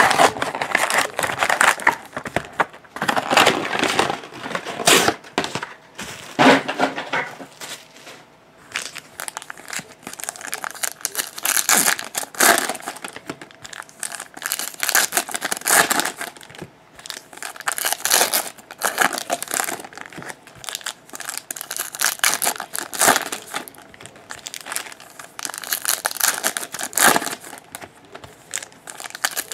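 Plastic wrapping crinkling and tearing in irregular bursts as a sealed box of trading cards and its packs are ripped open and handled.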